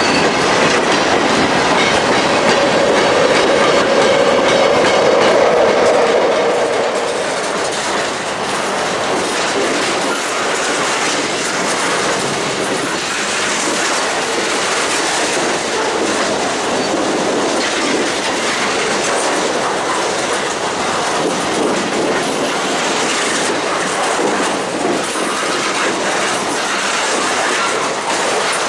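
Freight cars, tank cars and boxcars, rolling past close by, their wheels clicking and rumbling over the rail joints in a steady clickety-clack. The sound is louder for the first seven seconds, then settles to an even level.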